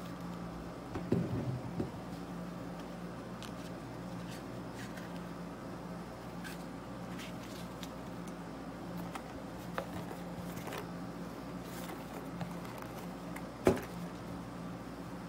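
Handling noise from the DJI Osmo Mobile 3 gimbal and its hard-shell carrying case: a cluster of small knocks and rubbing about a second in, scattered light clicks, and one sharp knock near the end as the gimbal is set down on the wooden table. A steady low hum runs underneath.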